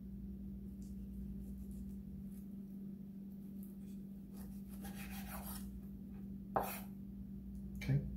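Chef's knife slicing through raw beef short ribs along the bone: faint rubbing, scraping strokes of the blade through meat, then a sharp knock of the blade on the cutting board about six and a half seconds in.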